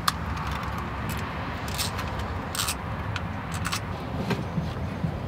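Scattered light clicks and knocks of a throttle body and small metal parts being handled, over a steady low hum.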